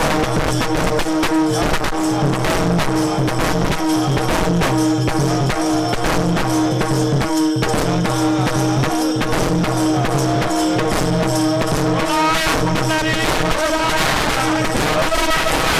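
Devotional kirtan music without words: a held melodic tone over steady rhythmic percussion, with a wavering melody line coming in about twelve seconds in.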